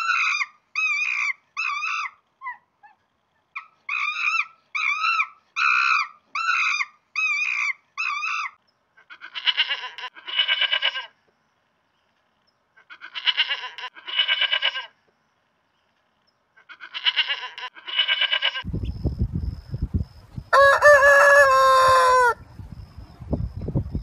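A run of short, high calls repeated about twice a second for the first eight seconds. Then three pairs of goat bleats, and near the end a rooster crowing once, long and loud, over a low rumble.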